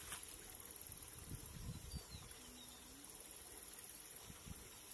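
Faint outdoor ambience: irregular low rumbles, with a short faint high chirp about two seconds in.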